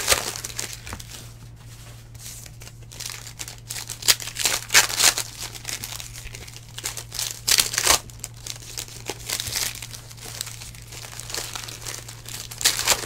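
Foil wrapper of a 2019 Donruss Elite football card pack being torn open and peeled back by hand, crinkling in irregular crackles that come thickest around the middle and again near the end.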